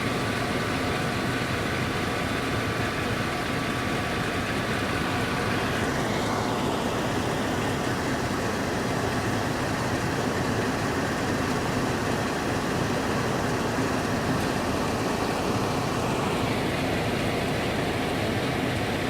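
Vortec V8 engine of a 1998 Chevrolet K2500 pickup running steadily with a freshly fitted alternator, during a charging-system test. A thin tone rises about six seconds in, holds, and slides back down near sixteen seconds, as the engine speed goes up and comes back.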